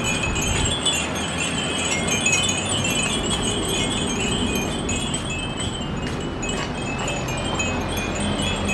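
Many small glass fūrin (Japanese wind bells) tinkling in the breeze, a steady stream of short, high, overlapping rings.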